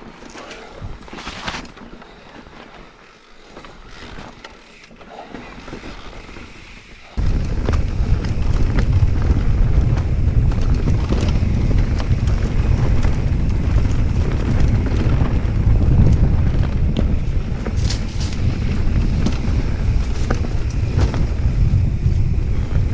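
Wind buffeting the action camera's microphone as an e-mountain bike rides a rocky singletrack, with clicks and rattles from the bike and tyres over loose stones. The low wind rumble comes in suddenly about seven seconds in and stays loud from then on.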